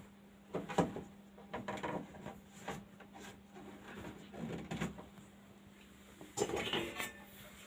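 Plates and vessels knocking and clattering as they are handled in a dishwasher rack, in about half a dozen short bursts.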